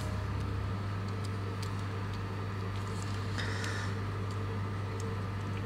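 Steady low hum of room tone, with a few faint light clicks and a brief soft hiss about three and a half seconds in.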